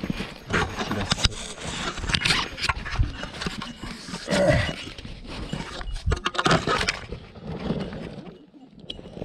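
Rubbing and knocking of a body-worn camera against a hiker's clothing and gear, with scattered clicks and knocks of footsteps on rock. The handling noise settles after about 8 s, once the camera lies against the fabric.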